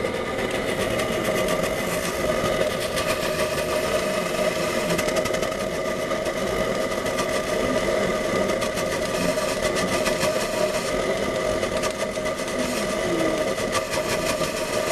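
Homemade gasoline vapor burner running: a steady rushing flame with a few held tones over it and a fine, rapid crackle.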